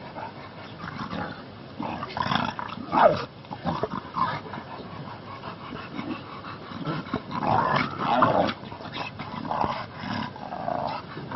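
A dog growling and grunting in rough play with white tiger and lion cubs, in irregular bursts that are loudest about two to three seconds in and again around eight seconds.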